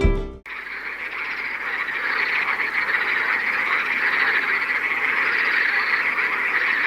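A steady chorus of many frogs calling together at night.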